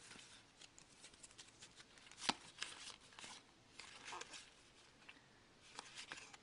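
Faint rustling and flicks of trading cards being handled and slid through the hands one by one, with a sharper card snap about two seconds in.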